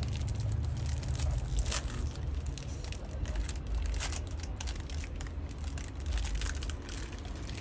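Hands rubbing and picking at a sneaker's upper and laces: a scatter of small crinkling clicks and scratches over a steady low street rumble.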